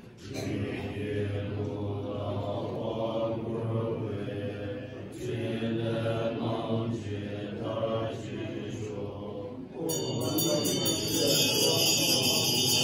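Tibetan Buddhist monks chanting a mantra together in low voices, in a steady rhythm. About ten seconds in, a bright metallic ringing joins the chant and the sound grows louder.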